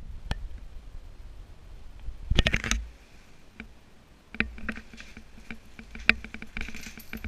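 Handling noise from a hand-held camera: scattered clicks and knocks with rustling of a riding jacket as the wearer moves about, the loudest rustle about two and a half seconds in and a run of small clicks near the end.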